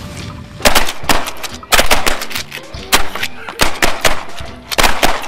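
A volley of shotgun blasts from several duck hunters firing together at passing ducks: a dozen or more loud shots in quick, overlapping succession, starting less than a second in.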